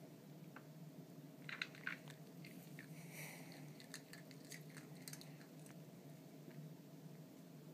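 Small dog chewing and crunching kibble, with scattered sharp clicks as it noses the pellets out of a plastic puzzle feeder; two louder clicks come about one and a half to two seconds in.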